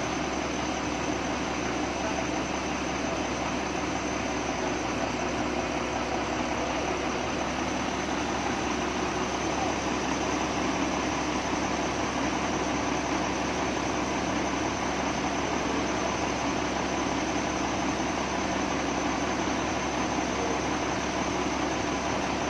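Doosan wheel loader's diesel engine idling steadily, with no change in engine speed.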